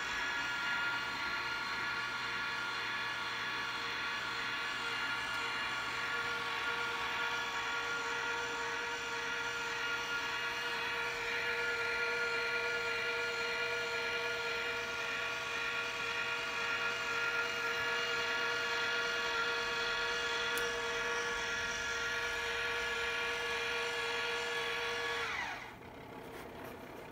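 Sky-Watcher 10-inch GOTO Dobsonian's drive motors slewing the telescope: a steady, high whine made of several tones. Near the end the whine drops in pitch and stops as the slew finishes.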